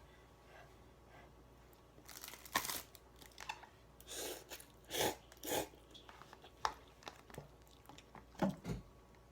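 Eating noises from someone eating Samyang spicy instant noodles: a string of short chewing and mouth sounds close to the microphone, starting about two seconds in, with the loudest few near the middle and near the end.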